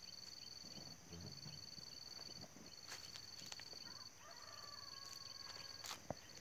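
A steady high-pitched insect drone that breaks off briefly about every second and a half. Several sharp snaps of dry sticks under a walker's feet come about halfway through and again near the end.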